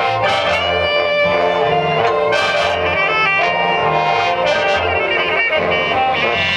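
High school marching band playing its field show: the brass section sounds held chords and melody over the percussion's sharp hits.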